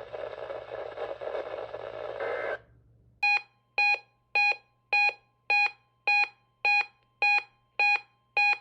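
Weather radio receiver's alert alarm beeping about two times a second, starting about three seconds in, set off by the National Weather Service warning alarm tone test. The faint steady alarm tone runs underneath. Before the beeps, radio hiss and hum cut off about two and a half seconds in.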